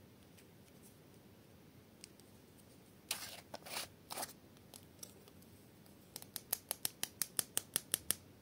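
Small plastic glitter jar's screw cap being worked open by hand: a few short scratchy rasps of the plastic, then a fast run of about fifteen sharp plastic clicks, roughly seven a second, growing louder near the end.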